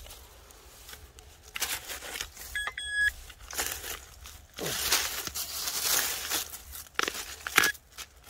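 Hands clearing dry leaves and debris from rocky soil, in bursts of rustling and scraping. A short high electronic beep comes about two and a half seconds in, with a shorter one near the end, from the pinpointer probe.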